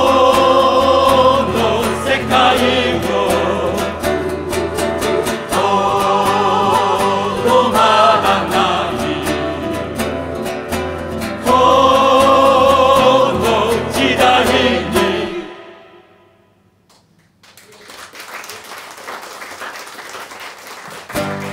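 Mixed choir singing in full chords with instrumental backing, bringing its song to a close about fifteen seconds in. After a brief hush the audience applauds, and a guitar starts up near the end.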